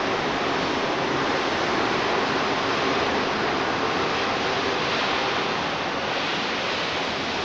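Steady rushing noise of a Scomi SUTRA four-car monorail train on rubber tyres pulling out of the station, with no horn or distinct tones.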